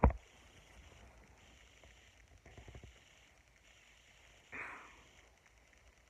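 Handling noise from a phone held in the hand: a bump right at the start, faint rubbing about two and a half seconds in, and a short scraping rub that fades out about four and a half seconds in, with quiet room hiss in between.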